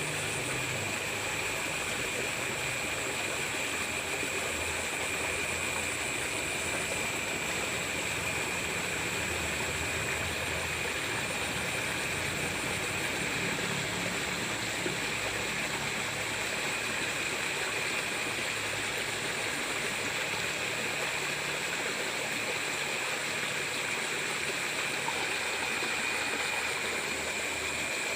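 Water running in a ditch after rain: a steady rushing that does not change. Steady high-pitched tones sit over it, one of them pulsing on and off.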